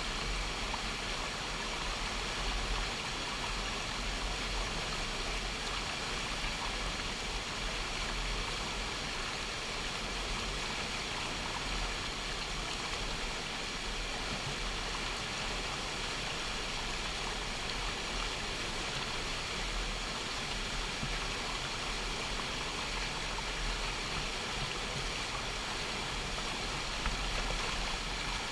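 A swollen creek at flood stage, its floodwater rushing in a steady, unbroken roar of whitewater.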